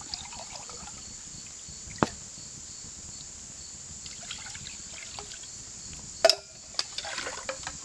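Water trickling as it is poured from a metal water bottle into a metal cup. A light click comes about two seconds in and a sharper metallic knock about six seconds in.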